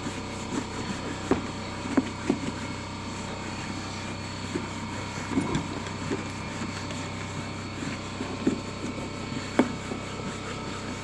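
A cloth rag rubbing and scrubbing over a leather saddlebag made tacky by Goof Off solvent. It gives short, irregular squeaks and rubbing strokes over a steady background hum.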